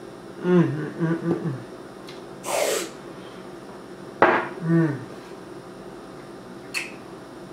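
Aerosol can of Hershey's chocolate whipped topping giving a short spray hiss about two and a half seconds in, between appreciative 'mmm' hums from the taster. A sharp knock follows about four seconds in.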